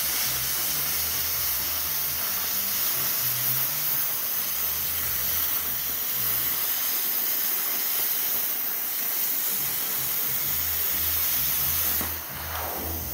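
Hypertherm plasma cutter cutting sheet steel: the steady, loud hiss of the air-plasma arc, which cuts off about twelve seconds in.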